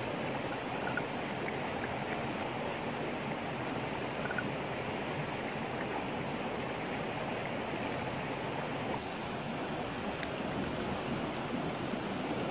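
Steady rushing of a stream flowing over rocks, with a faint click or two, perhaps from the wood fire.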